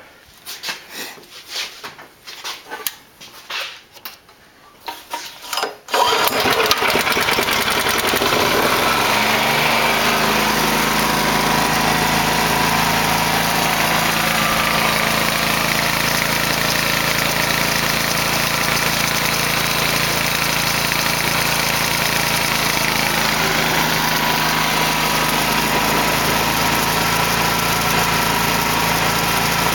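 A few seconds of scattered knocks and clatter, then a 9 hp overhead-valve engine starts suddenly about six seconds in and settles into a steady run, driving a permanent magnet alternator by V-belt.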